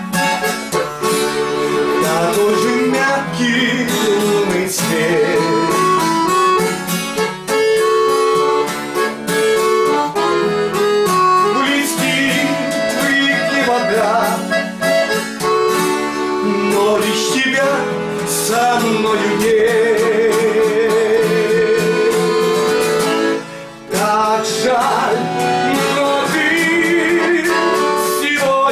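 Button accordion (bayan) and acoustic guitar playing a slow retro song together, with a wavering held note in the middle and a brief break about three-quarters of the way through.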